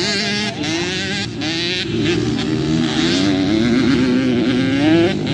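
Dirt bike engine revving on a motocross track, its pitch rising and falling repeatedly as the throttle is worked, climbing again near the end.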